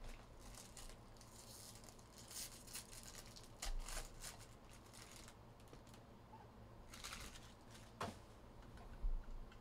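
Foil trading-card pack being torn open and handled: faint crinkling and tearing rustles in several spells, then two soft knocks near the end.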